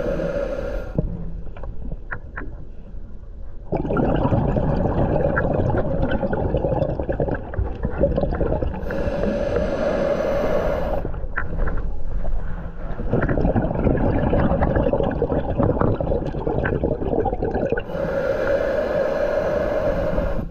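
Scuba diver breathing through a regulator underwater: a short hissing inhale with a steady whistling tone, then several seconds of exhaled bubbles, in a slow cycle that repeats about every nine seconds.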